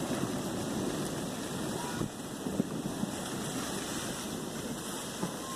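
Blizzard wind blowing in a steady rush, with a couple of faint clicks about two seconds in.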